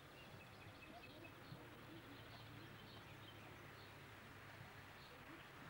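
Near silence: faint outdoor background hiss with small, scattered bird chirps.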